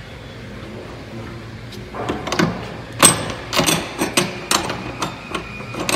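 Shore power cord being reeled into a Glendinning cord retriever: a low steady hum, then irregular clicks and knocks starting about two seconds in as the cord feeds in.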